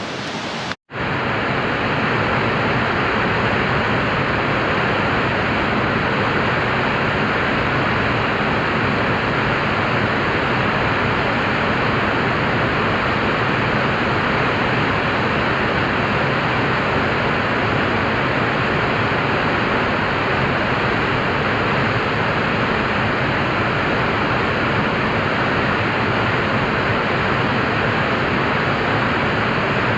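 Lucia Falls pouring: a steady, even rush of falling water that does not change. There is a brief cut to silence about a second in.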